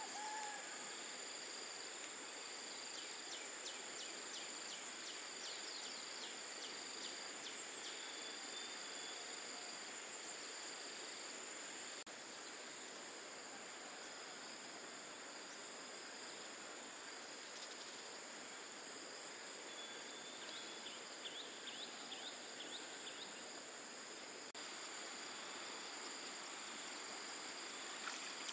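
Steady high-pitched insect chorus over a soft hiss, with two spells of rapid chirping, a few seconds in and again about three-quarters through.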